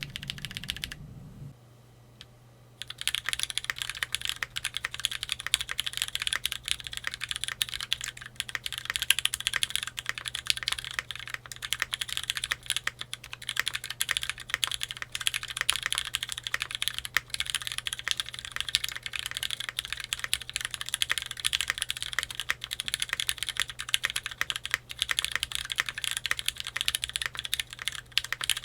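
Typing on a Keychron Q3 tenkeyless mechanical keyboard with an FR4 plate and lubed Cherry MX Black Hyperglide switches: a continuous stream of keystrokes. There is a short pause about two seconds in, and a faint steady low hum sits underneath.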